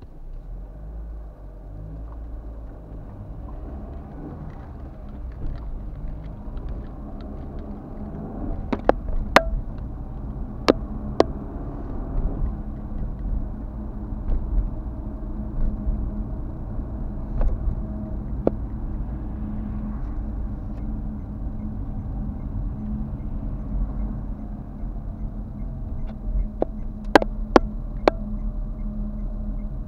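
Steady low engine and road rumble of a car being driven, heard from inside the cabin, with a handful of sharp clicks or knocks scattered through: two pairs about nine and eleven seconds in, and three in quick succession near the end.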